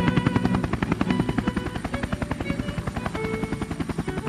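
Helicopter rotor chopping in a rapid, even beat, with background music underneath.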